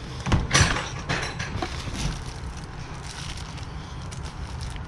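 Hands rummaging through a bag of odds and ends: plastic DVD cases clacking and a plastic bag rustling. A few sharp clicks come in the first two seconds, then quieter handling.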